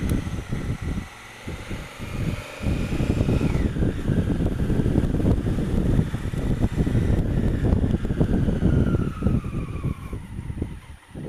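Honda Africa Twin CRF1000L parallel-twin engine running at low speed on the move, with a dense low rumble. The sound dips briefly a second or two in and falls away near the end. A faint high whine drops in pitch twice.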